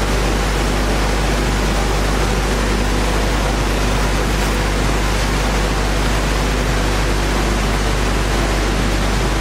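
Wood-core profile sanding machine running steadily: a loud, even noise with a low hum under it.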